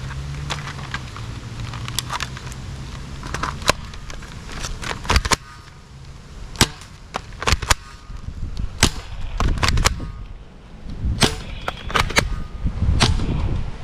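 Toy gun being handled and fired: a series of sharp clicks and snaps at irregular intervals, with a low hum through the first few seconds.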